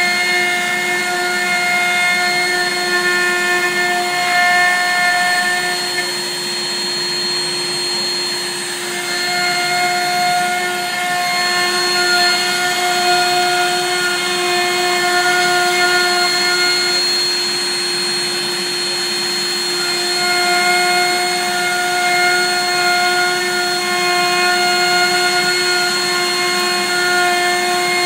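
Benchtop CNC router spindle running at a steady high speed while the cutter mills black locust wood. A steady whine is joined by a shifting cutting tone that comes and goes with the passes, dropping out twice for a few seconds.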